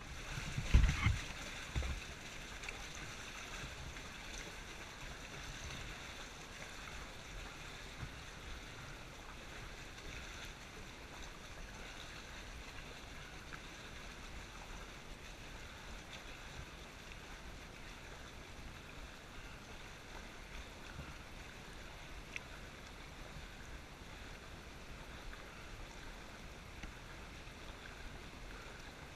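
Cave stream water flowing and lapping in a steady, faint wash, with a few loud thumps about a second in.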